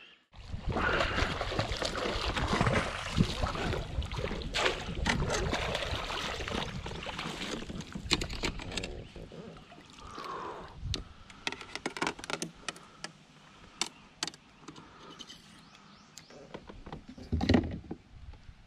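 Water splashing around a kayak while a snakehead is brought to the landing net, with clicks and knocks of gear against the plastic hull and one loud thump near the end as the netted fish comes up beside the boat.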